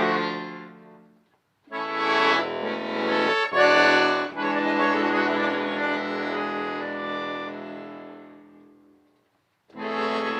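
Accordion played solo in sustained chords. One chord dies away about a second in, and after a brief silence new chords enter. A long held chord then slowly fades to nothing, and a fresh chord begins near the end.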